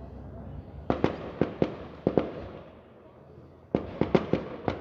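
Fireworks bursting: two quick volleys of about six sharp bangs each, the first about a second in and the second near the end, each bang dying away with a short echo.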